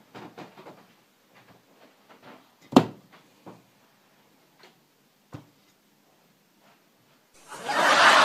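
Light taps and knocks of an object handled on a table, with one sharp knock about three seconds in as a handheld remote or phone is laid down, and a smaller knock a couple of seconds later. Near the end a loud burst of music and crowd noise suddenly cuts in.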